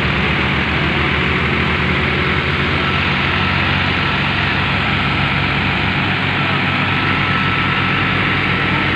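Farm tractor's diesel engine running steadily and hard under load as the tractor crawls through deep mud.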